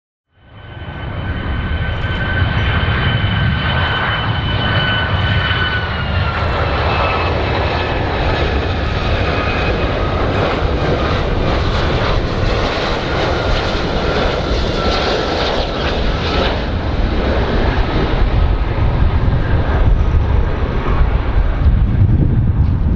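Large aircraft's engines running loud and steady, fading in from silence at the start: a deep rumble under a high whine that drops in pitch a few seconds in and again later, as the aircraft passes.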